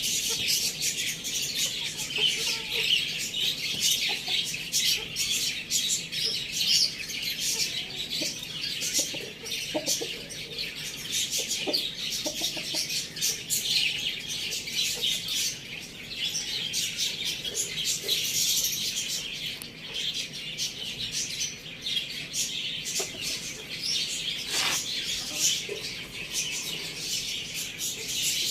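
Many small birds chirping and twittering together in a dense, continuous high-pitched chatter, with a few scattered lower calls underneath.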